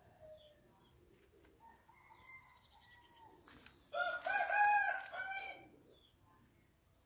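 A rooster crows once, about four seconds in, a loud call of under two seconds in a few linked parts. Fainter bird calls come a couple of seconds before it.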